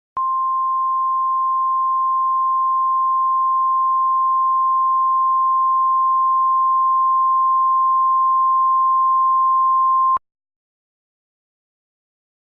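Emergency Alert System attention signal: the National Weather Service's 1050 Hz warning alarm tone. It is one steady, loud, high-pitched beep held for about ten seconds, then cut off sharply. It marks the start of a flash flood warning broadcast.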